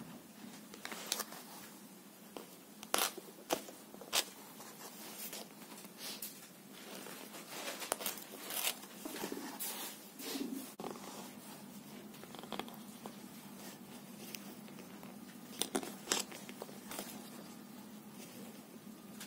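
Scattered light clicks and soft rustles of hands crocheting with a steel hook and thread, the paper pattern crinkling as the hands move over it, over a low steady hum.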